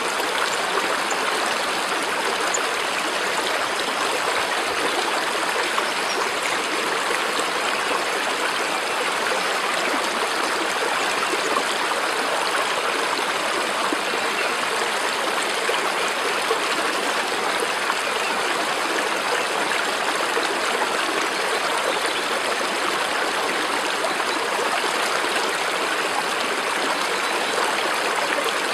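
Running water of a stream, a steady, unbroken rush.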